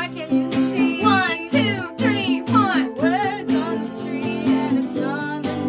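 A guitar and a ukulele strummed together, with a woman singing a melody over the chords.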